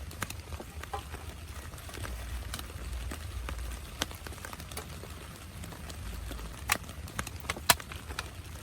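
Scattered raindrops tapping irregularly on a tent, over a steady low rumble, with two louder taps near the end.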